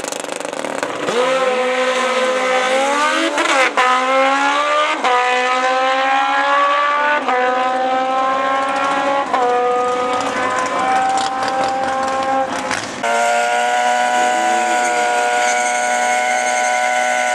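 Drag-racing motorcycles launching off the start line at full throttle. The engine note climbs in pitch and drops back at each of about four upshifts, fading slowly as the bikes run away. About 13 s in it switches abruptly to a sport bike held at steady high revs in a burnout, its rear tyre spinning.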